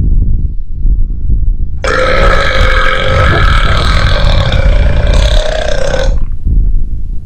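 One long, drawn-out burp of even pitch, lasting about four seconds and starting about two seconds in, over a continuous loud low rumble.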